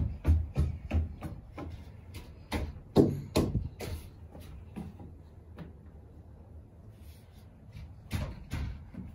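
A run of light thumps and knocks, several a second, that die down around the middle and start again near the end.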